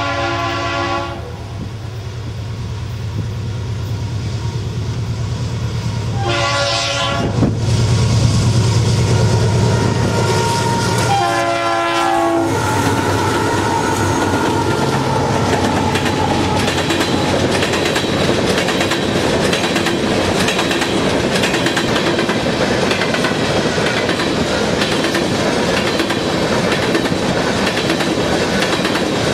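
A freight train's air horn sounds three times, near the start, about six seconds in and about eleven seconds in, over the low rumble of the passing train. A long string of open-top hopper cars keeps rolling past, the wheels clicking steadily over the rail joints.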